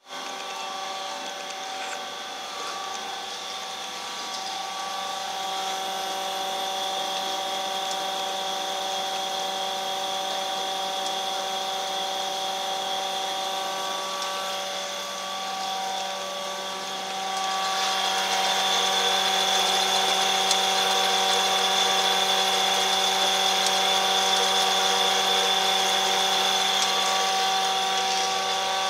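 CMC single-head screw capping machine running under power, a steady mechanical hum and whine with several held tones. It gets louder about 17 seconds in and stays that way.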